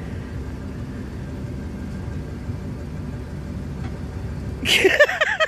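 Firewood vending machine running with a steady low mechanical rumble as it delivers a bundle of firewood to the chute. Near the end a loud exclamation from a person cuts in over it.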